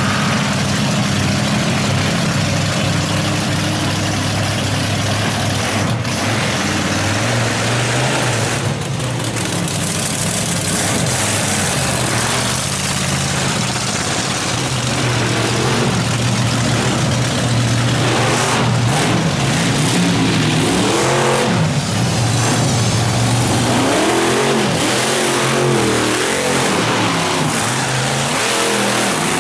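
Monster truck engines running loud at high revs, then revved up and down over and over through the last ten seconds or so.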